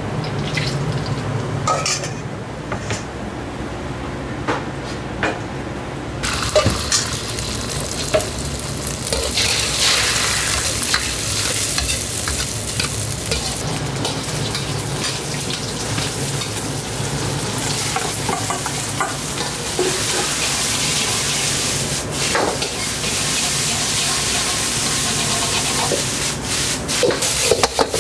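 Beaten egg and rice frying in hot oil in a wok: a dense sizzle that starts suddenly about six seconds in and keeps on, as the egg and rice are stirred and tossed with a metal ladle that scrapes and knocks against the wok now and then.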